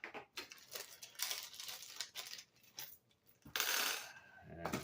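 Small steel Allen keys and screws clinking and rattling against each other as they are handled, followed about three and a half seconds in by a loud rustle lasting about a second.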